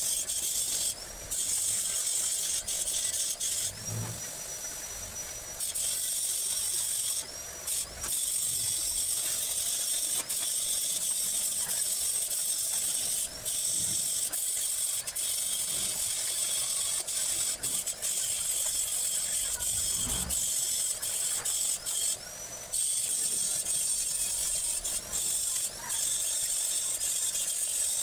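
Electric arc welding on steel tubing: a steady sizzling hiss, broken by a few short pauses where the arc stops and is struck again.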